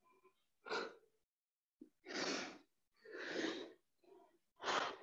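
A woman breathing hard from exertion while holding a forearm plank: four forceful breaths, the middle two longer.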